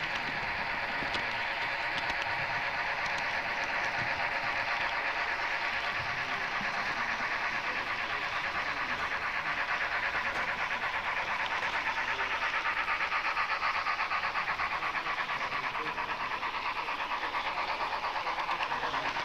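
HO-scale model train running along its track, a steady rattling noise with a fast, even pulse.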